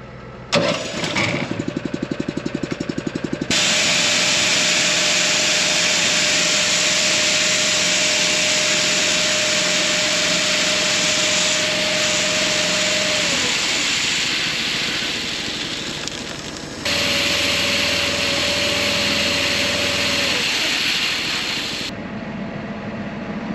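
A bulk seed tender's small gas engine starts up and runs with a fast even beat, then drives the seed conveyor: a loud steady rush of soybeans pouring down the conveyor tube into the planter's seed boxes, over the engine's steady drone. Near the end it gives way to the quieter hum of the tractor heard from inside the cab.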